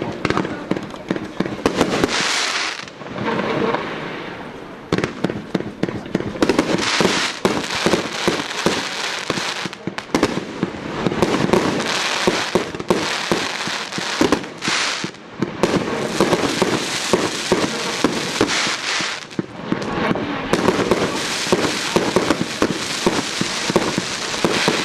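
MX1249B multi-shot fireworks cake firing shot after shot: tails launching and breaking into aerial bursts with dense crackling. There are brief lulls between volleys.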